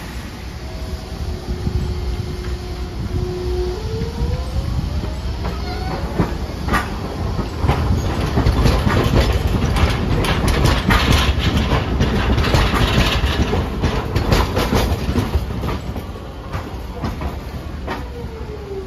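Hiroden articulated tram No. 3805 pulling away, its motor whine rising in pitch over the first few seconds. Its wheels then clatter over the points and rail joints as it passes close by. A falling whine comes near the end.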